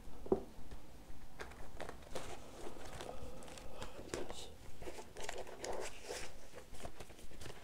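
Paper and a plastic folder being handled: rustling and crinkling with many small clicks as the folder and documents are moved about on a table.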